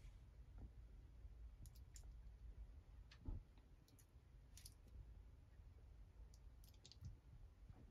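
Near silence: room tone with faint scattered clicks and a soft thump about three seconds in.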